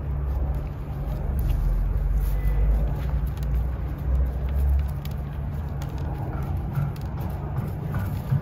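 A steady low rumble that swells for a few seconds, with faint scratching and crackling as a wooden chopstick loosens old soil from a root ball.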